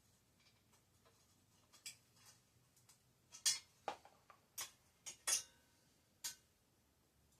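Small hard parts clicking and clinking as they are handled and set down: about ten sharp knocks, starting about two seconds in and stopping after about six seconds.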